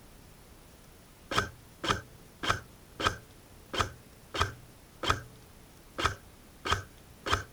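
Footsteps: about ten steady strides, a little under two a second, each a short dull thud.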